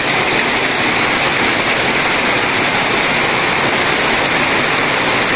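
Heavy tropical rain pouring down, a loud steady hiss with no let-up.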